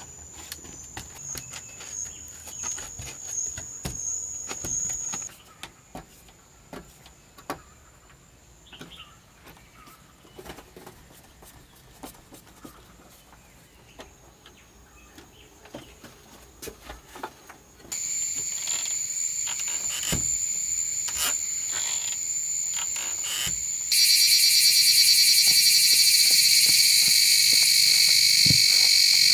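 Steady, high-pitched calling of insects with scattered light clicks and taps. It cuts out about five seconds in and comes back at about eighteen seconds. About twenty-four seconds in, a much louder, denser chorus of calling creatures takes over.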